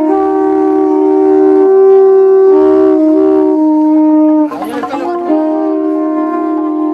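Alboka, the Basque horn-belled twin-pipe reed instrument, playing a tune with two notes sounding together and the pitch stepping every second or so. The sound breaks briefly into a breathy noise about four and a half seconds in, then the notes resume.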